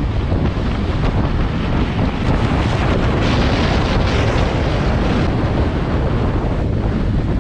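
Wind buffeting the microphone of a camera on a moving motorcycle, a steady heavy rush with engine and road noise underneath. About three seconds in the hiss grows brighter for roughly two seconds, then settles back.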